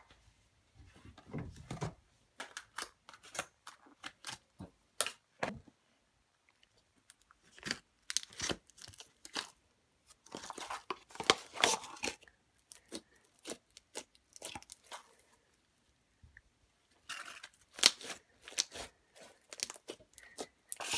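Slime being squeezed and stretched by hand in a plastic tub, making many short clicks and pops that come in bursts with quiet pauses between.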